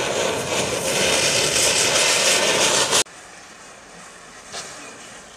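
Diwali firework spraying fire and sparks with a loud, steady rushing hiss that cuts off suddenly about three seconds in. Then a much quieter stretch of a chain of standing matchsticks burning, with a few soft crackles as match heads flare.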